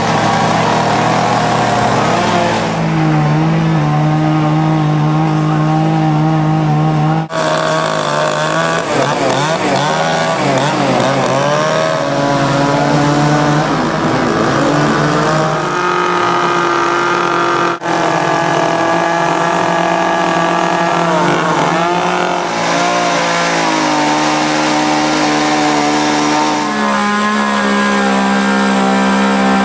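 Gasoline two-stroke ECHO chainsaws running and carving into wood. The engine note rises and falls often as throttle and cutting load change, sometimes wavering as the chain bites.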